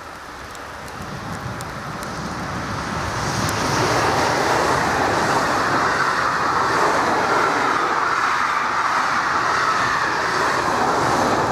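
Electric intercity passenger train passing at speed, a rushing rumble of wheels on rails. It builds over the first few seconds as the train draws near, then holds steady as the carriages go by.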